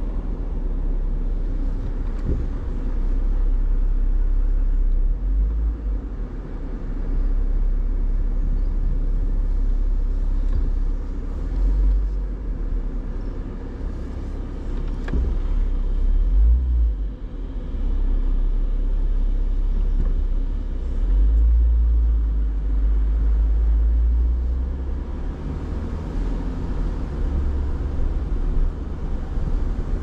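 Low rumble of a car driving, swelling and easing several times.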